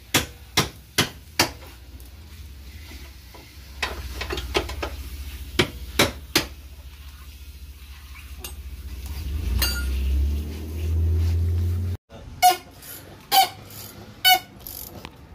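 Scattered sharp metallic clinks and taps of hand tools against steel leaf-spring shackle hardware, during a rear shackle replacement. A low rumble swells in the middle and cuts off suddenly, and a few ringing clinks follow.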